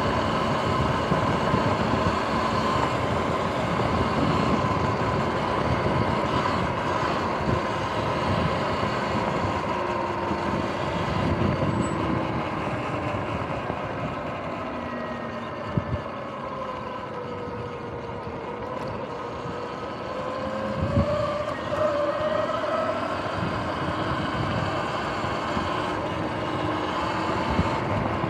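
Sur-Ron X electric dirt bike running along a path, its motor whining over a steady rush of noise. The whine's pitch sinks slowly toward the middle as the bike eases off and climbs again near the end as it speeds up. There is a single sharp knock about halfway through.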